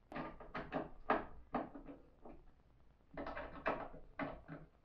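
Wooden knocks and clatter of a plywood overarm dust-collection arm being moved and folded on its upright mount. There are two bunches of sharp knocks, the first in the opening two seconds or so and the second a little past the middle.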